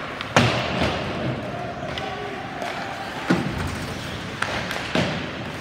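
Ice hockey play: a handful of sharp knocks and bangs of the puck, sticks and players hitting the boards, echoing in the rink. The loudest comes about half a second in, with others near the middle and near the end.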